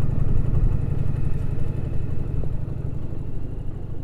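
Indian Challenger motorcycle's V-twin engine running while riding, a steady low pulsing rumble that slowly grows quieter.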